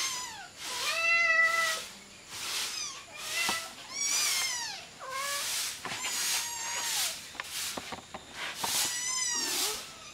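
Hungry kittens meowing over and over, about ten short high-pitched calls, roughly one a second, some rising and falling in pitch.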